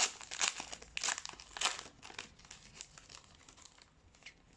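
A trading-card pack wrapper being torn open and crinkled, with dense rustling over the first two seconds that thins to a few faint crinkles.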